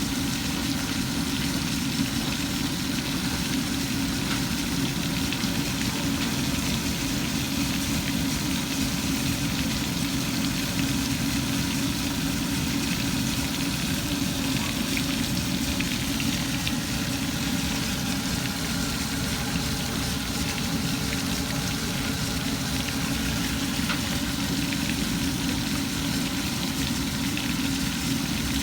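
Chicken sizzling steadily as it fries in hot oil, over a steady low hum.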